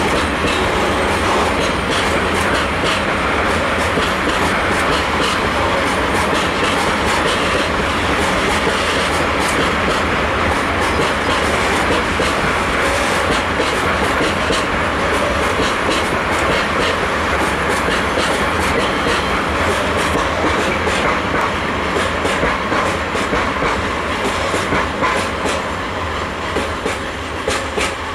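Freight train of coal wagons rolling past close by, a steady rumble with the wheels clicking over the rail joints. The sound eases and grows more uneven near the end.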